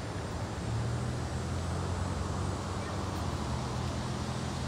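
A steady low engine hum that comes up about a second in, over a constant outdoor background hiss.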